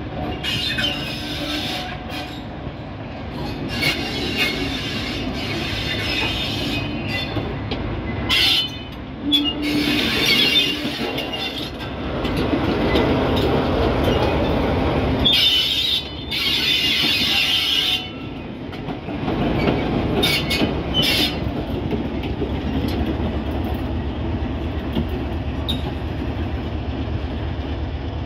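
Class 47 diesel locomotive running past close by, its Sulzer twelve-cylinder diesel engine running steadily throughout. High-pitched wheel squeal comes and goes in several stretches as the wheels grind round curved track and points.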